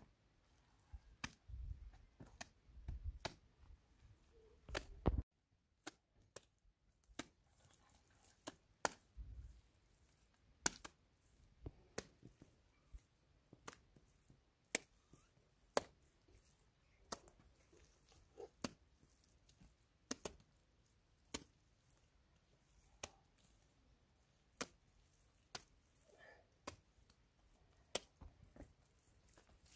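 Handfuls of wet mud plaster slapped and pressed onto a mud wall by hand, a sharp slap about every one to one and a half seconds. Low soft thuds of mud being scooped up in the first few seconds.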